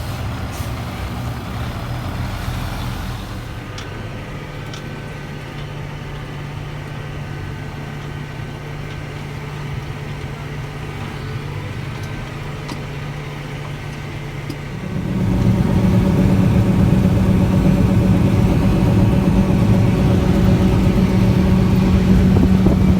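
Farm tractor's diesel engine running steadily under load while towing a stuck, loaded grain truck on a chain, then stepping up to a louder, higher-pitched run about fifteen seconds in.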